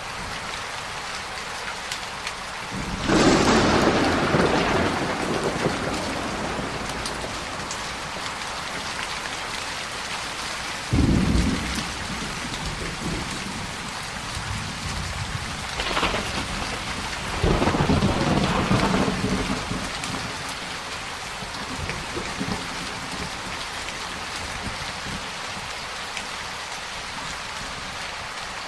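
Steady heavy rain falling, with rolls of thunder swelling and fading several times: a long one about three seconds in, a short crack near the middle, and more rumbles a little later.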